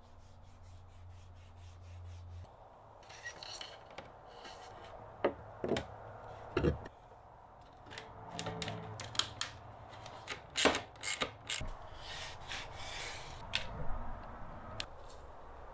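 Hand rubbing and wiping, with scattered sharp clicks and knocks: the car's plastic bumper and diffuser lip being wiped down with isopropyl alcohol before taping. A low steady hum in the first couple of seconds.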